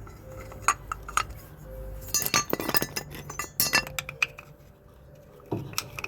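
Small metal parts and tools clinking and clattering during brake work, in a run of sharp clicks that is busiest in the middle.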